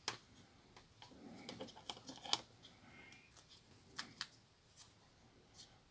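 Faint, scattered clicks and taps of small parts being handled and fitted into the plastic housing of a Nokia 6310i mobile phone during reassembly.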